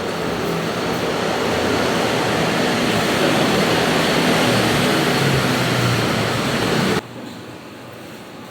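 Loud, steady street traffic noise coming through an open window, with a low engine hum in it. About seven seconds in it drops sharply to a much quieter muffled hum, as the soundproof aluminium window is slid shut.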